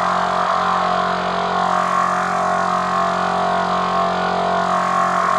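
Dark cinematic horror ambience: a steady, unbroken drone of held low tones under a hissing wash.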